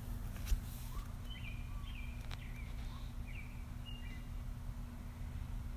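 Birds chirping in a few short, quick calls over a steady low hum.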